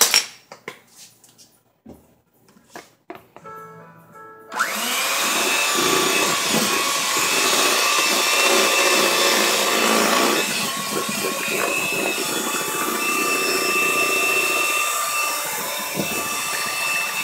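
A few light clinks and taps of kitchen utensils, then about four and a half seconds in an electric hand mixer switches on and runs with a steady motor whine, its beaters churning through cheesecake batter in a plastic bowl.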